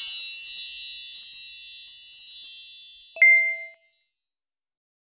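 Chime sound effects: many high tinkling tones ringing and fading, with scattered small dings and one clear ding about three seconds in, all dying away before four seconds.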